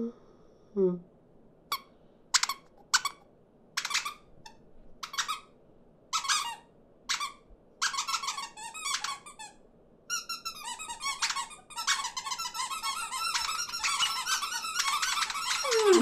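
Cartoon small birds squeaking and chirping. At first single squeaks come about a second apart, then from about eight seconds in they crowd into an overlapping, bickering chatter of many birds. A lower, falling call starts right at the end.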